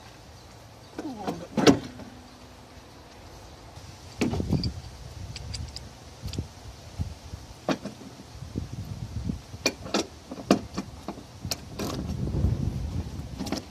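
Knocks and clicks of a car battery being handled and lifted out of the engine bay, with a heavier thump about four seconds in. Then a ratchet wrench clicks in short strokes on a battery-tray bolt near the end.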